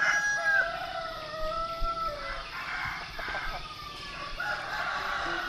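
Roosters crowing: several long crows one after another, some overlapping, with a new crow starting near the end.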